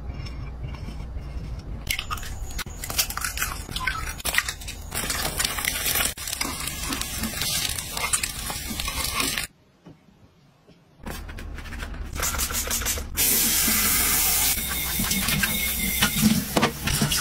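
Eggs sizzling and crackling in oil in a four-cup nonstick egg frying pan. After a brief silence, tap water sprays onto plates and bowls in a kitchen sink with a loud, steady hiss.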